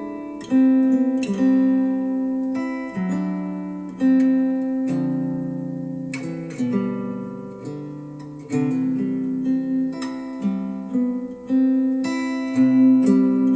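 Instrumental acoustic guitar music, plucked notes and chords each ringing and dying away, reproduced through Wharfedale Denton 80th bookshelf speakers driven by a Cambridge AXA35 integrated amplifier.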